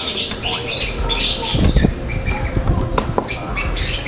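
Small birds chirping and twittering steadily, with a few knocks and clicks from handling near the middle.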